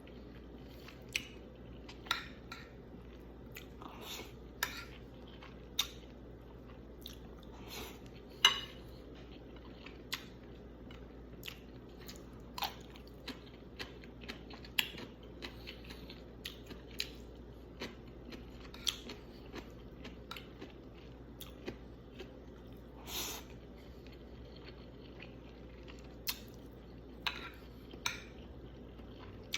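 Someone eating a meal: cutlery clicking and scraping against a plate in short sharp clicks every second or two, with chewing in between.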